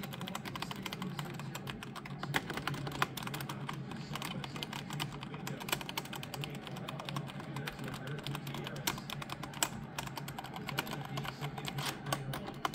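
Fast, continuous typing on a Royal Kludge mechanical keyboard with brown (tactile) switches: a dense run of key clicks and clacks, over a steady low hum.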